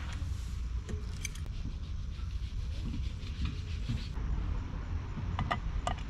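Metal camp cookware being handled at a small alcohol burner: light clinks and scraping, then a few sharp metallic clicks near the end as a steel mug and its pot stand are set down onto the burner.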